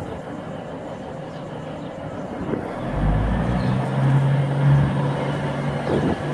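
V/Line VLocity diesel multiple unit's engines powering up as the train pulls away from the platform. About three seconds in, a deep drone swells and settles into a steady engine hum.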